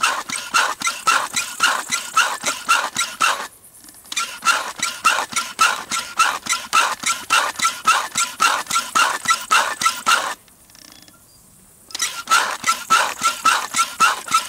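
Portable electric tyre inflator running in rapid, even pulses, about five a second, pumping up a punctured tyre on a walk-behind mower's wheel. It stops briefly about three and a half seconds in, and again for about a second and a half around ten seconds in, then starts again.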